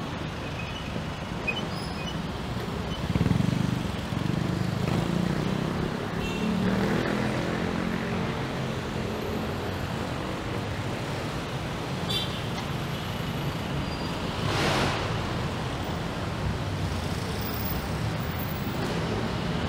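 Street traffic: a steady din of vehicles, with an engine passing close by about three to eight seconds in and a short hiss near the middle.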